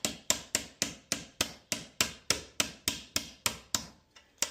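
Quick, light hammer taps, about three to four a second, driving a stiffener insert into the end of a copper baseboard heating pipe to ready it for a press fitting. The tapping pauses briefly about four seconds in and starts again near the end.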